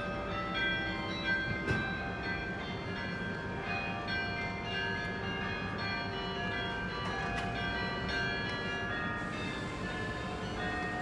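The carillon bells of the Bruges Belfry playing a tune: many bells of different pitches struck one after another, each left ringing so the notes overlap.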